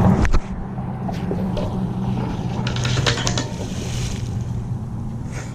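A steady low engine hum, with a few sharp knocks right at the start.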